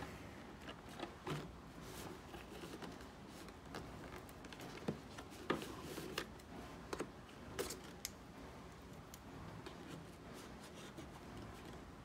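Quiet handling noise: scattered light taps and clicks as PC parts and their packaging are moved about on a table, with a few sharper clicks between about five and eight seconds in.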